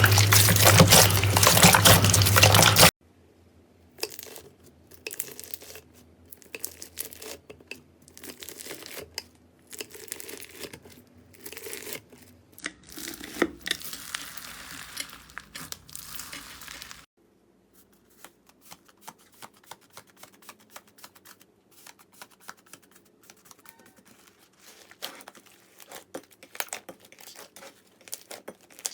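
Slime being squeezed, stretched and pressed by hand: crinkling, crackling and sticky tearing sounds scattered with small pops and clicks. A loud, dense sound in the first three seconds cuts off abruptly, and the clicks turn sparser and crisper about two-thirds of the way through.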